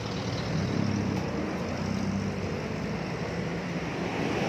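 Steady outdoor street noise: a continuous low rumble of vehicle traffic with the general din of a busy roadside.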